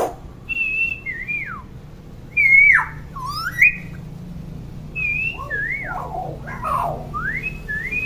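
Common hill myna giving a series of clear whistles. Some notes are held, then drop steeply in pitch, and others rise, with short gaps between them and a few quick high chirps in the middle.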